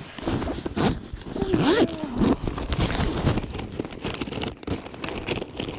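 Hands rummaging in a zippered tackle bag, plastic bait packages rustling and clicking, with a goose honking briefly about a second and a half in.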